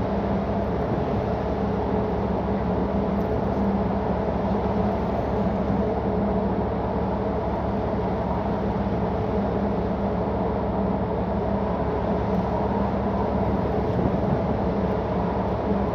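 Steady drone of a tanker's engine and machinery while it is underway: an even hum with several held tones in it that does not change.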